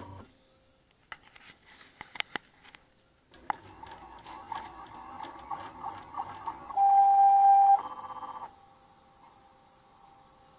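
Stepper motors of a MostlyPrintedCNC pen plotter: a few light clicks at first, then motor running noise from about three seconds in, rising to a loud steady whine for about a second around two-thirds of the way through, then dropping to a faint steady whine.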